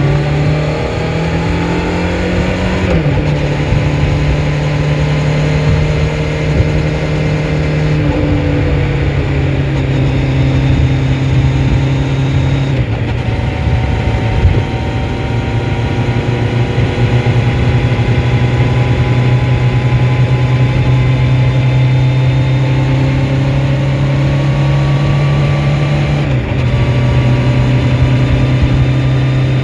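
2004 Honda CBR1100XX Blackbird's inline-four engine running at steady revs under way, its pitch stepping down about three seconds in, again near the middle and once more near the end. Wind rumble buffets the microphone throughout.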